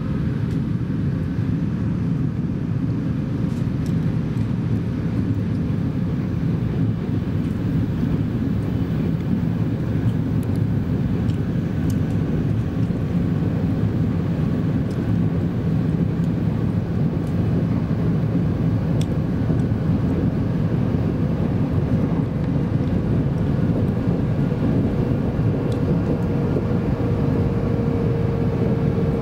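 Steady low rumble of a Shinkansen Hikari train running at speed, heard from inside the passenger cabin, with a few faint ticks. Near the end a faint tone slides slowly down in pitch as the train begins slowing for Okayama Station.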